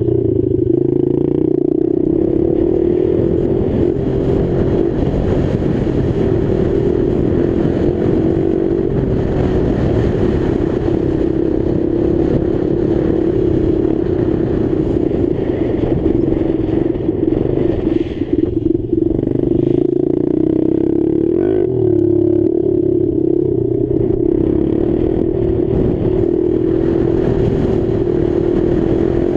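Motocross bike engine running hard at high revs, heard from the rider's helmet, its note wavering with the throttle and dipping briefly about two-thirds of the way through.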